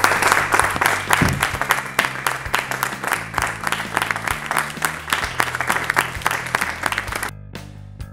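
A group of people clapping their hands together, tailing off and stopping about seven seconds in, with background music underneath.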